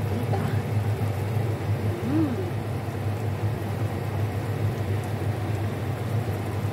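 Asam sauce with fish simmering in a wok, a steady fine crackle of bubbling over a low, steady hum.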